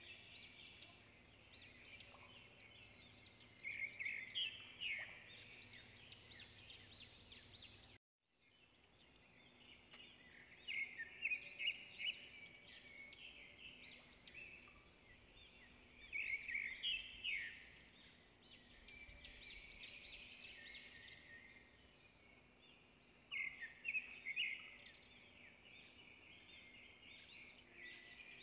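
Small birds chirping in quick twittering bursts, a cluster of chirps every few seconds, faint throughout. The sound cuts out completely for a moment about a third of the way in.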